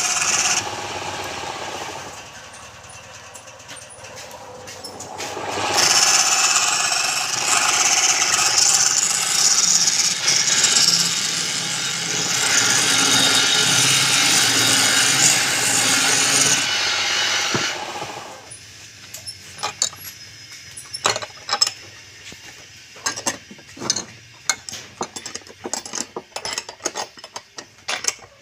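Woodturning tool cutting wood on a lathe: a loud hissing scrape in long passes, with a quieter pause early on. The cutting stops about two-thirds of the way through, and scattered sharp knocks and clicks follow.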